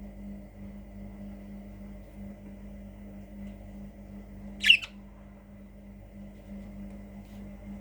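Budgerigar giving one short, sharp squawk about halfway through, over a steady background hum.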